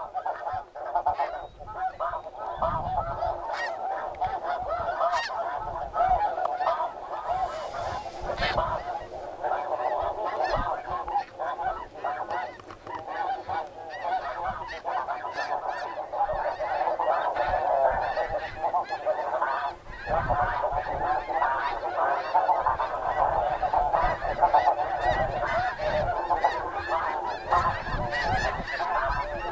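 A large flock of snow geese calling, a dense continuous chorus of overlapping honks and yelps.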